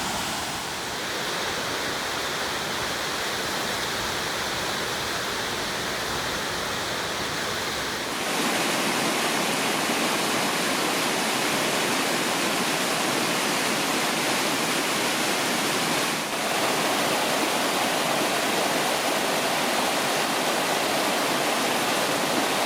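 Rushing water of a mountain creek and waterfall, a steady even rush. It shifts abruptly louder and brighter about eight seconds in, with a brief dip a little past the middle.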